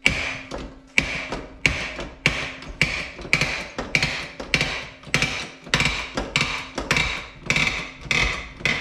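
Hydraulic hand pump of a bench-top shop press worked in steady strokes, a sharp click with each stroke about every 0.6 s, as the press forces a worn-out rear wheel bearing out of an ATV hub carrier.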